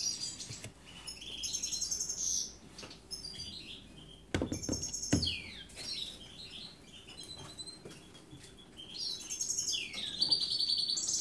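Canaries chirping and singing in bouts of short, rapid, high-pitched trills, with a couple of short knocks from handling about four to five seconds in.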